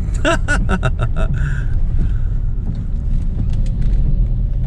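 Car engine and tyres rumbling steadily from inside the cabin while driving, a low drone with a faint steady hum; a man's voice is briefly heard at the start.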